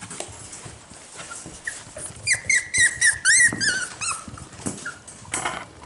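Young cockapoo puppies whining, a run of short, high-pitched wavering cries starting about two seconds in and lasting about two seconds, followed by a brief rustle near the end.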